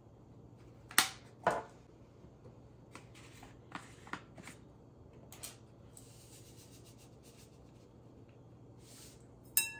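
Spice containers and measuring spoons being handled while salt and pepper are measured: scattered clicks and taps of lids and containers, a soft hissing rustle for a couple of seconds as the seasoning is poured, and a sharp ringing clink near the end.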